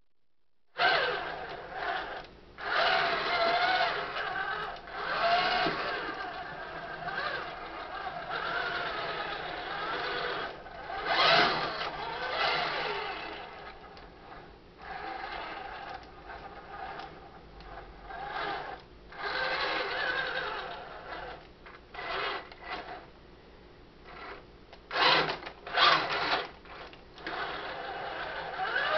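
Electric drive motors and gearboxes of an RC tracked dump truck whining in repeated bursts as it is driven, starting and stopping often, the pitch rising and falling with the throttle.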